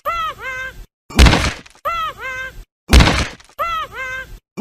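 Looped, rhythmic cartoon sound effect: a hard hit followed by a pair of short, squeaky, high-pitched gliding cries, repeating about every second and three-quarters, with abrupt silent gaps between.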